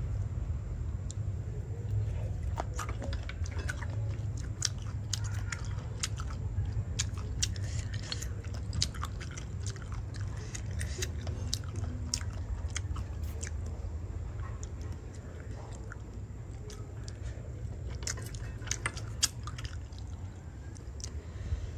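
A person eating boiled snails: chewing, with many small sharp clicks and crunches at an uneven pace, over a steady low rumble.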